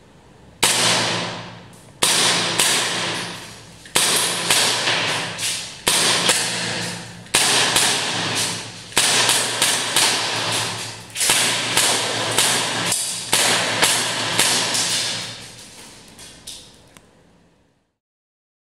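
Prototype MP-443 Grach gas blowback airsoft pistol firing a long string of shots, some single and some in quick pairs or threes. Each shot is a sharp crack of the cycling slide followed by a short fading tail. The shooting stops about fifteen seconds in and the sound dies away.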